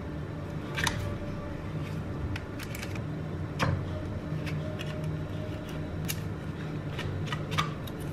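Pull-tab lid of a tin of luncheon meat being peeled open and the can handled: a series of sharp metallic clicks and scrapes, the loudest about three and a half seconds in.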